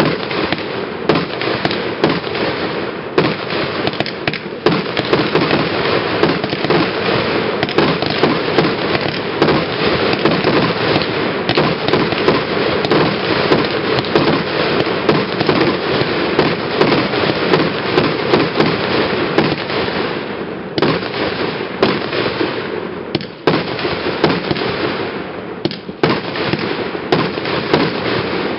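Single-fuse consumer fireworks compound set firing a continuous barrage: rapid launches and bursting shells with dense crackling and popping. It thins out briefly near 23 and 26 seconds.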